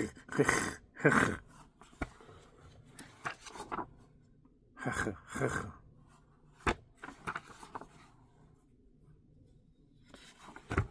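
Comic books in plastic bags being handled: several short bursts of rustling and sliding, with a sharp click about two-thirds of the way through.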